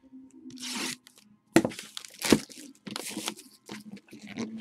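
A cardboard trading-card box being picked up and handled on a tabletop: a sliding rub, two sharp knocks about a second and a half and two seconds in, then a run of small scrapes and crinkles over a faint steady hum.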